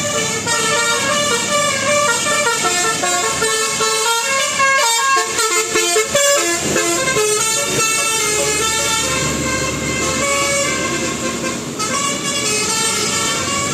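Bus telolet horn, a set of multi-trumpet musical air horns playing a tune: several tones sound together and change pitch in short steps from note to note.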